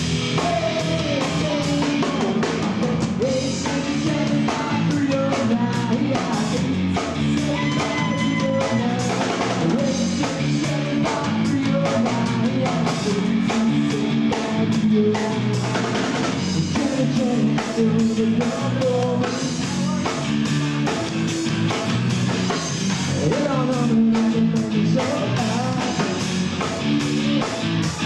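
Live rock band playing: a drum kit keeping a steady beat under electric guitar and bass, with a man singing through a microphone at times.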